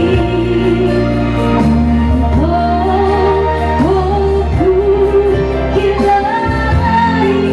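A woman singing into a handheld microphone over a musical accompaniment, holding long notes with vibrato over sustained bass notes.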